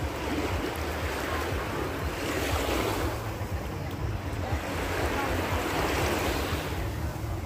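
Small sea waves washing onto a sandy shore, the surf swelling twice, with wind buffeting the phone's microphone.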